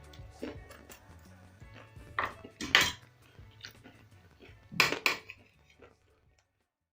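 Dishes and cutlery clinking in a few sharp knocks, the loudest about three seconds in and again about five seconds in, over quiet background music that stops about six seconds in.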